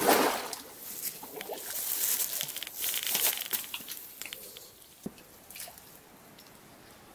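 Magnet on a rope splashing into the water at the bottom of a stone well, followed by crackling rope-and-brush rustle and water sloshing and dripping in the shaft, fading over about four seconds. A sharp click about five seconds in.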